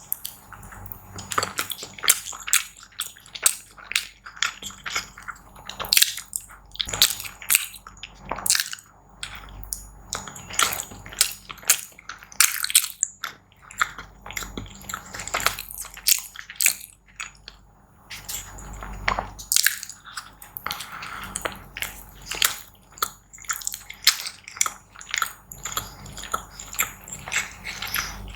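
Close-miked eating: a person chewing and biting food, heard as a dense, irregular run of short sharp mouth clicks.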